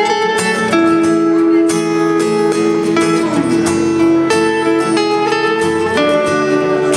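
Acoustic guitar playing an instrumental passage of a song between sung lines, with no vocals.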